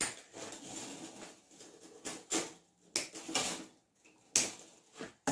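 Pliers and floral wire being handled on a tabletop: a few light clicks and taps with rustling in between, the sharpest click about four seconds in.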